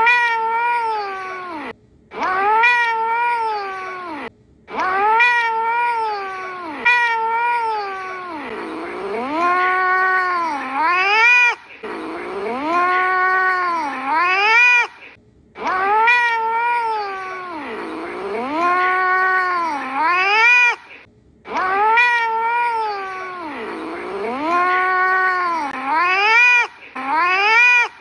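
A cat meowing in long, sing-song phrases that rise and fall in pitch, repeated over and over with short breaks. Several phrases end in a steep upward squeal.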